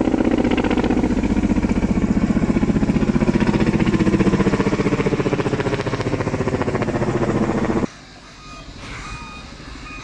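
Firefighting helicopter flying overhead with a water bucket slung beneath it, its rotor beating in rapid even pulses. It cuts off suddenly about eight seconds in, giving way to a quieter scene where a vehicle's reversing beeper sounds a few short beeps.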